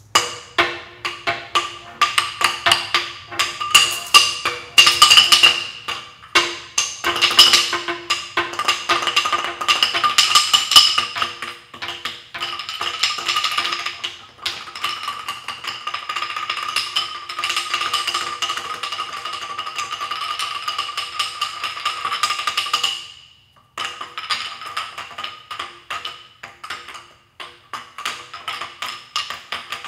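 A large resonant stone slab, a 'California Gavaldashi' modelled on a ritual ringing stone from Azerbaijan, beaten with thick wooden sticks by several players in fast interlocking rhythms. Each stroke is a dry knock, and the stone rings with sustained pitched tones between the strokes. The playing stops for a moment late on, then resumes.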